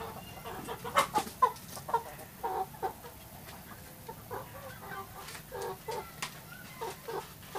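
Chickens clucking in short repeated calls, with a couple of sharp knocks about a second in.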